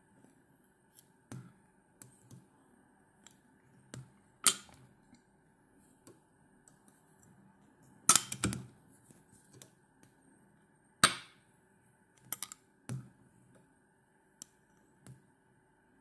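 Fly-tying handling noise while a fur dubbing loop is wound onto a hook in a vise: a scatter of sharp clicks and snaps, a few of them loud, over a faint steady hum.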